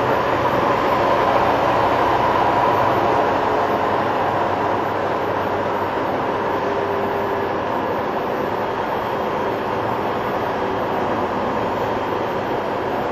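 Steady engine and road noise inside a truck cab at highway speed, with tyres hissing on wet pavement.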